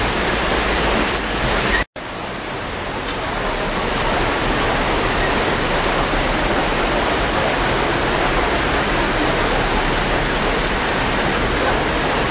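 Steady rushing hiss of heavy rain and flowing urban floodwater, with faint drop ticks. It cuts out for an instant about two seconds in, then comes straight back.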